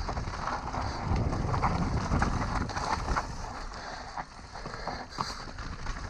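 Mountain bike rolling fast down a dirt trail: tyres running over packed dirt and dry leaves, with many sharp rattles and knocks from the bike over the bumps, over a steady low rush. It eases off a little about four seconds in.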